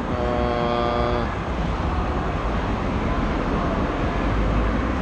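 Steady road traffic noise with a low rumble, and a steady pitched tone lasting about a second just after the start.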